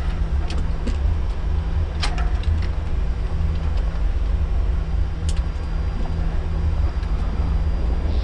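Steady low rumble of an Airbus A340 flight deck while the airliner taxis, with a faint steady hum and a couple of brief clicks.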